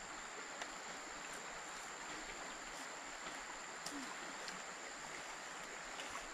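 Steady rushing of a small forest stream, with a thin steady high-pitched whine over it and a few faint ticks.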